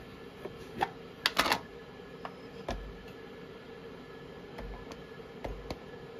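Pieces of butter set down one by one into a glass bowl: a series of light taps and clicks, the loudest cluster about a second and a half in, over a faint steady hum.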